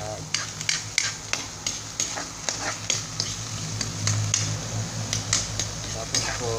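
Metal ladle stirring and scraping around a wok, with sharp clinks about two to three times a second, over the sizzle of garlic, onion and tomato frying.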